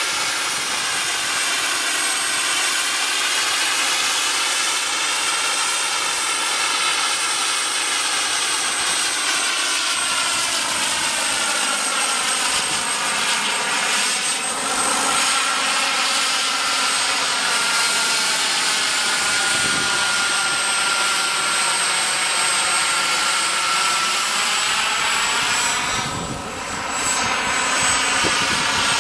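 Turbine-powered scale model of an SA 315B Lama helicopter in flight: a steady high turbine whine mixed with rotor noise. The sound sweeps and phases slowly as the helicopter moves about the sky, and dips briefly near the end.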